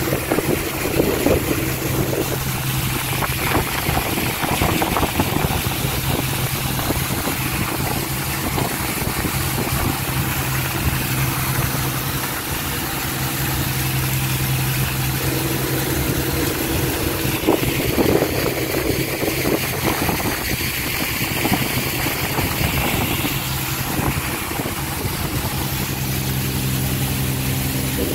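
Passenger ferry's engine running steadily with a constant low hum, with water rushing along the hull.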